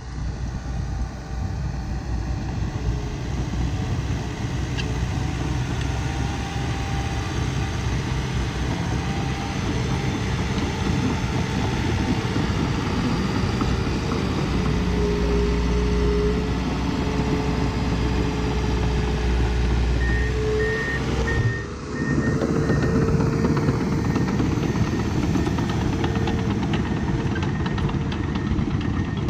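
Diesel engine of heavy earthmoving equipment running steadily, with a short run of high beeps about twenty seconds in and a brief drop in the sound just after.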